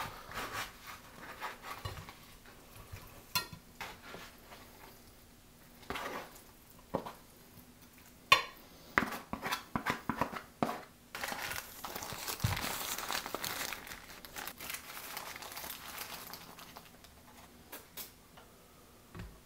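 Takeout food being plated by hand: a metal spatula scrapes and taps against a paper takeout tray as loaded tots are slid onto a plate. Paper food wrappers then crinkle for a few seconds as wrapped burritos and hard-shell tacos are set out, with scattered clicks and knocks of food and packaging being put down.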